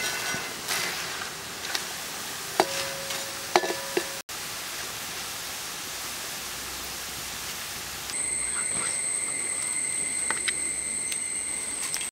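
Ribbon pakoda strips sizzling as they deep-fry in hot coconut oil in a metal wok. A few sharp metallic clinks of the slotted spoon against the pan come around three to four seconds in. A steady high whine joins about eight seconds in.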